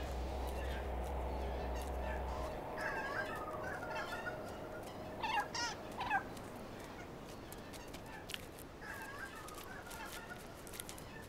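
Megapode calling: a few wavering cries about three seconds in that end in three loud strokes near six seconds, then a softer group of calls near the end.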